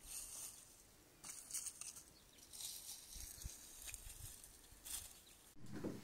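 Faint, scattered scrapes and rustles of a garden hoe digging potatoes out of loose soil among pulled potato plants, with a sharp click near the end.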